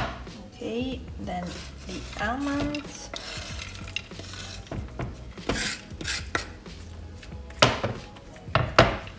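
Kitchen utensils clinking and scraping against a ceramic baking dish and a wooden cutting board as chopped almonds are scraped off the board with a knife. A cluster of sharp clinks comes in the last couple of seconds.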